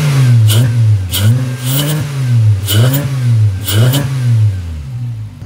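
Volkswagen Jetta 2.5 five-cylinder engine revved in about five quick throttle blips, its pitch rising and falling each time, with a short sharp hiss on each blip. It settles back down near the end.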